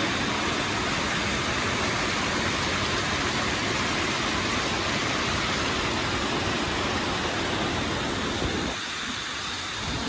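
Waterfall pouring steadily: a dense, unbroken rush of powerful running water. The deep part of the sound thins out for about a second near the end.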